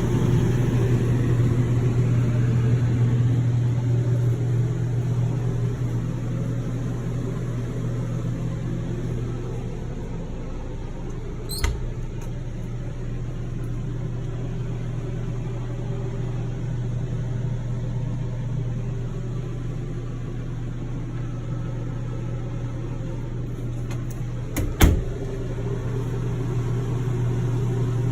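Steady low mechanical hum, with two short clicks: a faint one about twelve seconds in and a louder one near twenty-five seconds.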